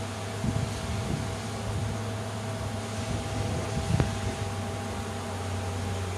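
Steady, dense buzzing of a western honeybee swarm in flight, many bees on the wing at once. A few short low thumps sound over it, the clearest about four seconds in.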